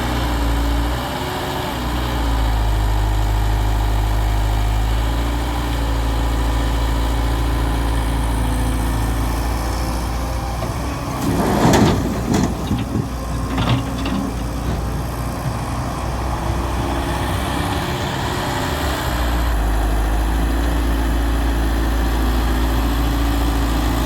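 Heavy diesel machinery of an excavator loading a tractor trolley, running steadily. About halfway through there is a short burst of thuds and rattling, like a bucket-load of mud being dropped into the trolley.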